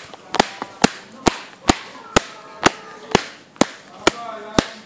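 Hands clapping in a steady rhythm, about two sharp claps a second.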